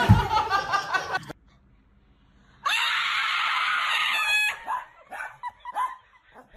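A loud scream lasting about two seconds, followed by short yelps or laughs. A thud and excited voices are heard right at the start.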